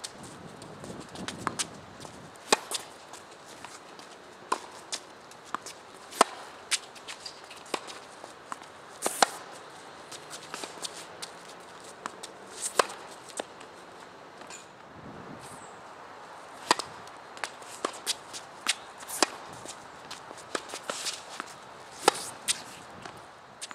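Tennis rally on an outdoor hard court: sharp pops of racquets striking the ball and of the ball bouncing, irregularly spaced about a second or more apart, with shoes moving on the court between shots.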